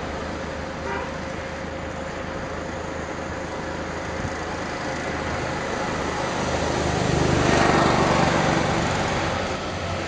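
Motor vehicle running with road noise, a steady low engine rumble under a rushing hiss that grows louder past the middle and eases near the end.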